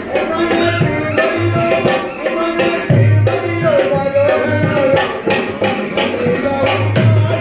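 Music: a hand drum beating a steady, repeating rhythm under a wavering melody line, in the style of Indian folk puppet-show accompaniment.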